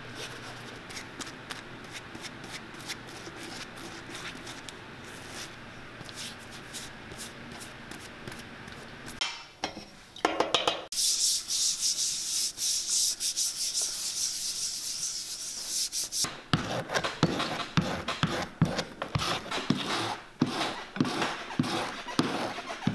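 A brush scrubbing primer onto black rubber shoe soles. Faint strokes at first; from about eleven seconds in, a loud, steady scrubbing, then separate back-and-forth strokes at about three a second.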